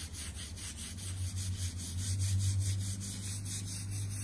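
Soft-bristled brush on a long handle scrubbing wet, foamy stone mosaic paving in quick, regular back-and-forth strokes, spreading a cleaning product over the stones, over a steady low hum.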